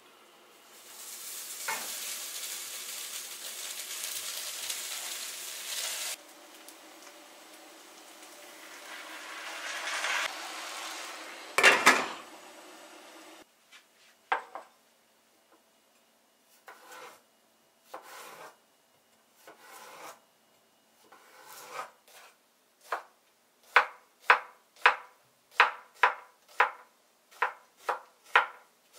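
Cooked rice sliding out of a frying pan into a pot with a rustling hiss, then a sharp knock of cookware. After that come scattered knocks on a wooden cutting board, turning into a knife dicing a cucumber at about two chops a second.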